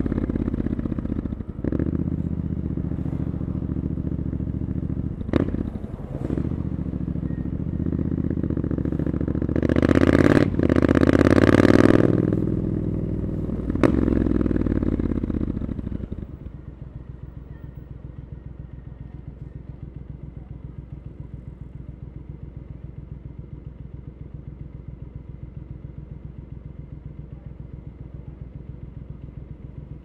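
Triumph Scrambler 900's parallel-twin engine through an Arrow aftermarket exhaust, heard from the rider's seat: running under way with a few sharp clicks and a loud stretch about ten seconds in. About halfway through it eases off and settles to a steady idle, as at a red light.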